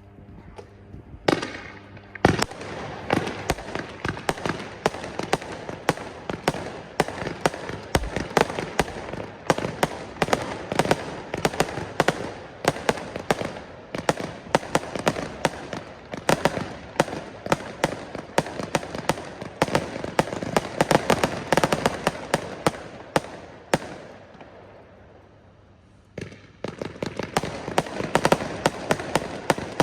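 A Weco Hard Rock Overture 240-shot, 20 mm fireworks battery firing in rapid volleys of shots, many a second. The shots start about a second and a half in. Near the end they thin out to a brief fading hiss, then the rapid shots pick up again.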